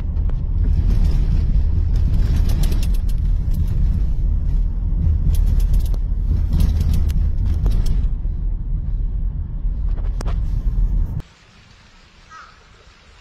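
Road noise inside a moving car on a rough, patched road: a steady low rumble of tyres and engine, with spells of rattling and knocks over the bumps. It cuts off suddenly about eleven seconds in, leaving only faint outdoor sound.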